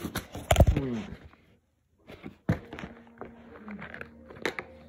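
A sudden loud thump about half a second in, then scattered clicks and knocks from plastic toy track pieces and the phone being handled on a carpet.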